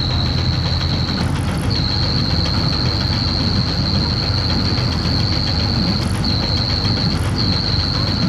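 Lanz tractor engine running steadily under load while pulling a plough through the field. A shrill, steady high note sounds over it, broken briefly a few times.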